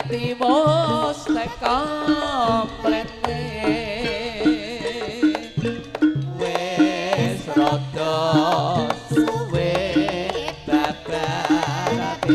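Javanese gamelan playing a langgam: kendang hand drums keep a steady rhythm with bronze gongs and pitched percussion, under a wavering, ornamented melody line.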